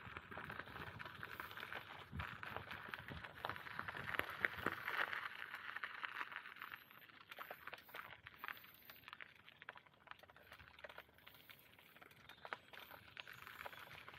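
Bicycle tyres rolling along a path, a faint steady rushing with many small crackles from grit under the tyres; it drops off about halfway through.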